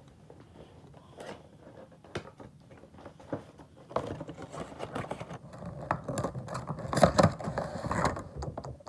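Cardboard Funko Pop box handled and opened by hand: a few scattered taps and rubs, then, about four seconds in, louder sliding, scraping and crinkling of cardboard and the clear plastic insert as it is pulled out, loudest about seven seconds in.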